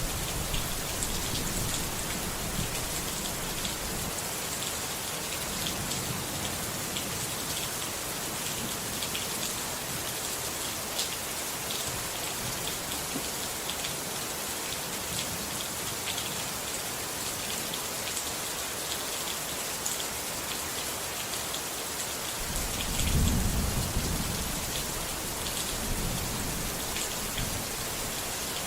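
Steady rainfall with scattered drop ticks, joined by a low rumble of thunder that swells about four-fifths of the way through.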